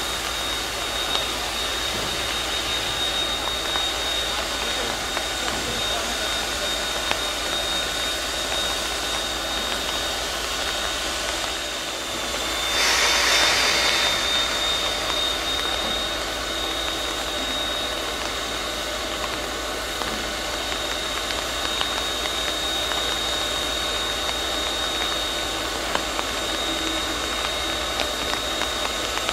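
Taiwan Railway DT668, a D51-type steam locomotive, standing in steam with a steady hiss and a thin high whine. About 13 seconds in, a louder rush of escaping steam lasts a second or two.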